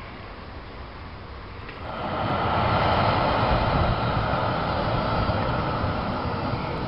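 Quiet street ambience, then from about two seconds in the steady, louder running noise of a light-rail tram travelling along its track, with a low rumble.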